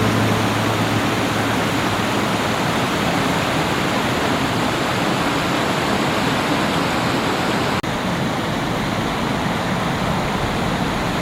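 Waterfall: a steady, dense rush of falling water, with a brief break about three-quarters of the way through.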